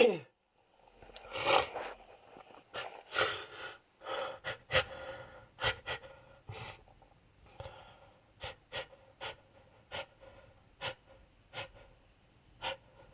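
A man's gasping breaths and sniffing during a pollen-induced allergy sneezing fit: a sharp noisy breath about 1.5 s in, a few more heavy breaths, then a string of short, quick sniffs through an irritated nose.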